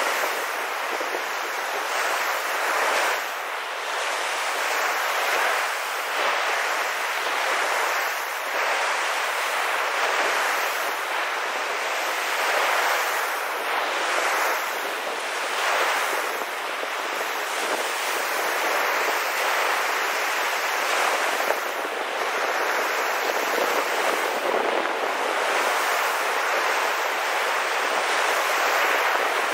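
Sea surf on a beach: a steady hiss of breaking waves that swells and eases every few seconds.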